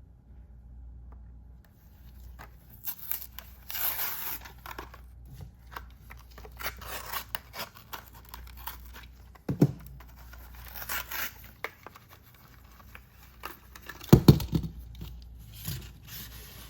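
Hot Wheels blister-card package being torn open: cardboard backing ripping and plastic blister crinkling in irregular bursts, with two sharper knocks about ten and fourteen seconds in.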